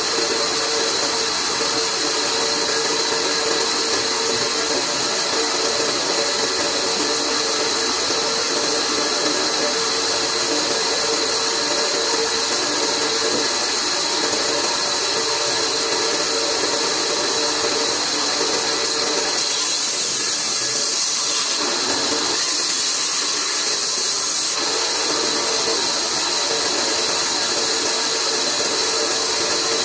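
Large bandsaw running steadily, its blade cutting lengthwise through a thick wooden beam fed by hand, with a constant hiss and hum; the tone shifts briefly about twenty seconds in.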